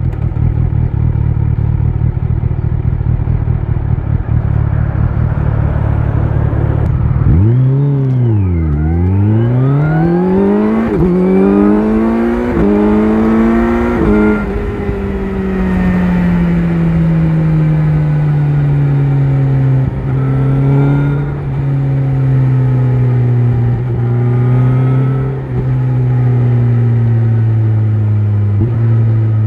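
Kawasaki Z900's inline-four engine through an Akrapovic exhaust, running steadily at first. About seven seconds in it dips and then climbs hard in steps with short breaks, like quick upshifts. After that the engine note sinks slowly with a few brief interruptions as the bike slows.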